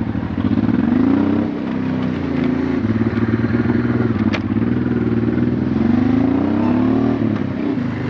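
Honda Transalp's V-twin engine running under way, its pitch rising and falling several times as it accelerates and shifts, with a sharp drop near the end.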